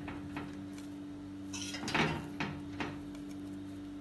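Metal spoon scraping and knocking against a pan and a ceramic plate as thick mashed potato-and-vegetable mixture is scooped out: a handful of short scrapes and taps, the loudest about two seconds in. A steady low hum runs underneath.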